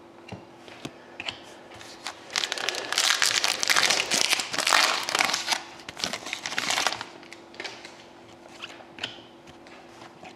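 Foil trading-card pack being torn open and crinkled, loudest from about two to seven seconds in, with light clicks and taps of handled cards before and after.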